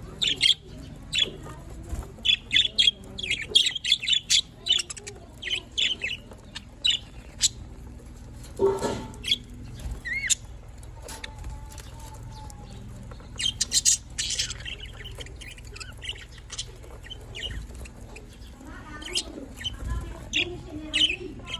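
Budgerigars chirping: quick runs of short, high chirps, thickest in the first several seconds and again midway, with a lower warbling chatter near the end.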